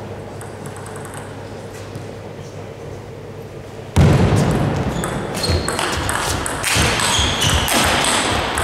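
Table tennis rally: the ball clicks in quick succession off rackets and table, over a loud rush of background noise that starts suddenly about four seconds in.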